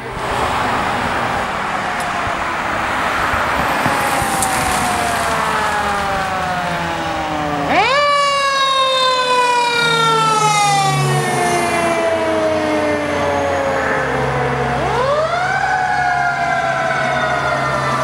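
Fire engine siren, on a Pierce pumper going by on a run: twice it winds up fast and then falls away in a long slow glide, over the low rumble of the truck's engine.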